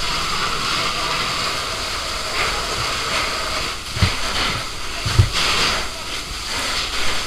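Fire hose nozzle spraying a strong jet of water, a steady loud hiss and rush of water striking the ground and walls. Two dull low thumps break in about four and five seconds in.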